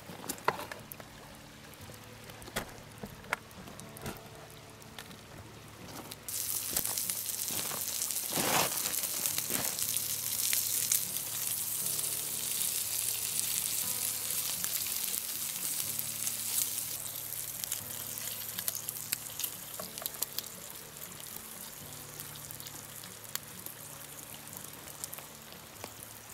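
Food sizzling over a campfire: the sizzle starts abruptly about six seconds in after a few scattered crackles, then slowly dies down. Soft background music plays underneath.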